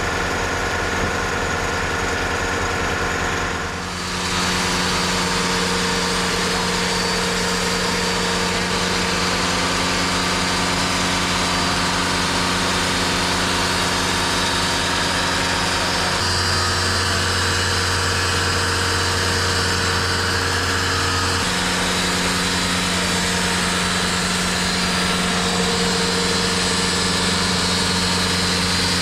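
TimberKing 2520 portable sawmill's engine running steadily. About four seconds in the sound dips briefly, then a wider hiss joins the engine, and between about sixteen and twenty-one seconds in the engine note shifts lower before returning.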